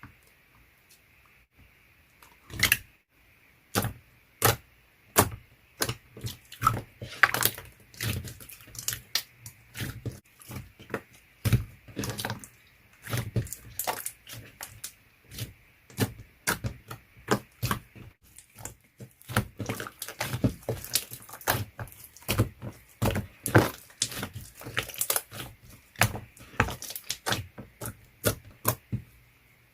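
Clear slime being pressed and squished by hand, giving a dense, irregular run of sharp clicks and pops that begins a couple of seconds in.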